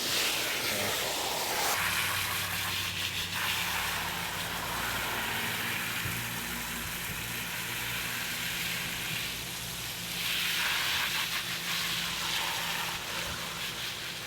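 Water spraying onto a wet dog's coat, rinsing shampoo out: a steady hiss that swells louder and softer as the spray moves over the dog.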